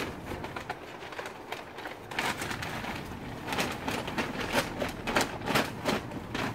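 Large paper yard-waste bag being shaken open, the stiff kraft paper crackling and snapping in a run of sharp rustles, thickest from about two seconds in to near the end.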